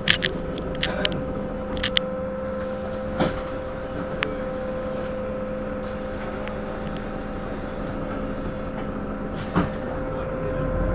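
Heuliez GX 327 city bus standing at idle, its engine giving a steady hum with a steady whine above it. A brief high tone sounds in the first second and a half, with several sharp clicks and knocks in the first two seconds and single knocks at about three, four and nine and a half seconds in.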